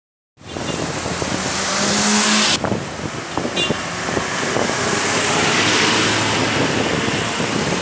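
Road traffic: vehicles going by, with engine rumble and road noise.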